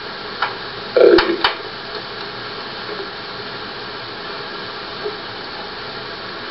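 Steady hiss of an old film soundtrack. It is broken about a second in by a short cluster of clicks and a brief low sound, with a few fainter ticks later.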